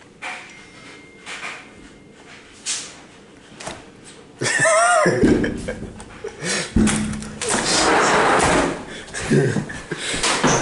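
Camera-handling knocks and rustling, with a brief high-pitched squeal that rises and falls in pitch about four and a half seconds in, then a loud stretch of rustling noise.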